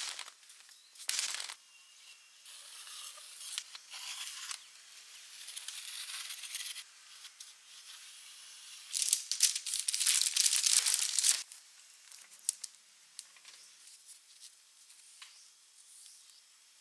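Scraping and rustling from a baked sponge cake being loosened from its metal tray with a knife and its baking paper handled, in short scratchy bursts, the longest and loudest about nine to eleven seconds in.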